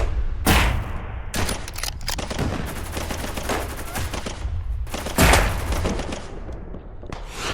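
Battle gunfire: a volley of rifle and machine-gun shots cracking irregularly over a low rumble, with one louder shot about five seconds in.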